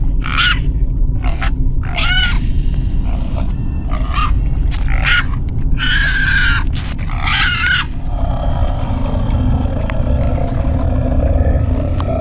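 Horror sound effect of a creature growling and snarling in a run of short bursts over a steady low rumble. After about eight seconds the bursts give way to a continuous lower rasping growl.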